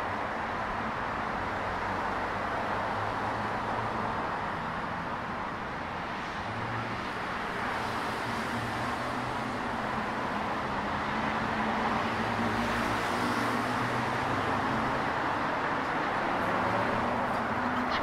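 Steady road traffic on a wide multi-lane city boulevard: a continuous hum of cars and tyres passing, a little louder in the second half.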